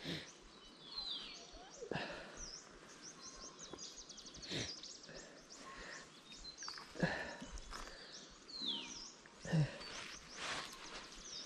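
Wet nylon gill net being pulled hand over hand out of a lake: water dripping and splashing off the mesh, with several louder splashes spread through. Birds call in the background with short falling whistles.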